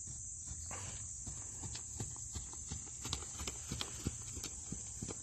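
Horse's hoofbeats on a sand arena: a quick, irregular run of footfalls that grows louder past the halfway point as the horse goes by close.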